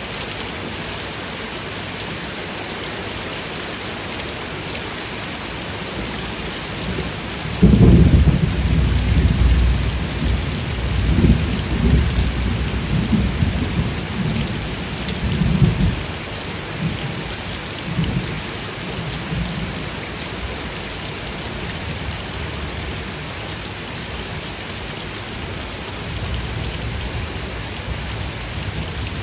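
Steady rain falling, with thunder: a sudden low rumble breaks in about eight seconds in and rolls on in waves for some eight seconds, then fainter rumbles follow twice later.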